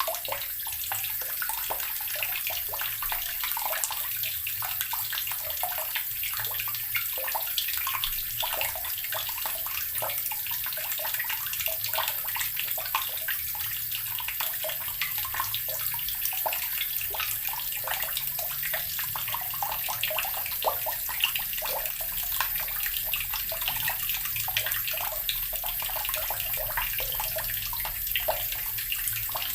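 Water from a tap gurgling into an earthen barrel, a steady, unbroken flow.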